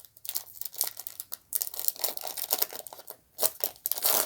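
Baseball card pack wrapper crinkling and tearing as it is ripped open by hand, a dense run of irregular crackles.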